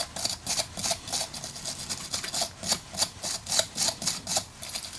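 Metal wire brush scraping and twisting against a corroded car battery terminal, scrubbing off the corrosion in rapid rasping strokes, about three or four a second.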